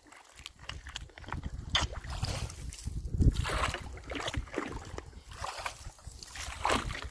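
Irregular splashing and sloshing in shallow water as a broom handle is jabbed down into the mud at the mouth of a beaver-clogged culvert pipe to loosen the blockage, with a low wind rumble on the microphone.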